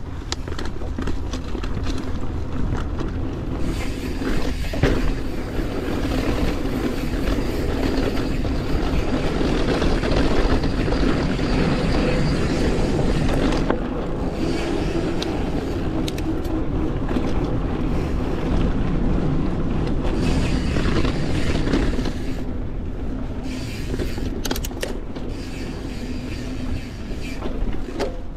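Mountain bike rolling along a dirt trail, heard from an action camera on the rider: wind rushes over the microphone with a deep rumble, over tyre noise from the trail. A few sharp knocks come from the bike going over bumps, about five seconds in and near the end.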